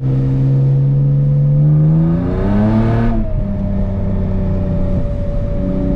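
BMW E36's swapped-in inline-six engine pulling under acceleration on a test drive: the engine note climbs, drops at a shift about three seconds in, then holds steady. It runs without the misfire, now that water has been blown out of the cylinders and the coil packs replaced with a matching set.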